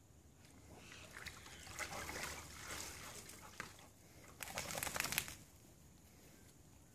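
Large Labrador–English Mastiff cross getting up and climbing out of a plastic paddle pool, the water sloshing and splashing around him. A second, louder burst of splashing comes a little after halfway.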